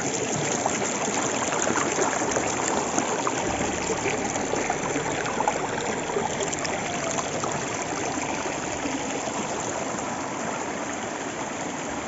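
Shallow stream water flowing and splashing over and between boulders, a steady rushing wash.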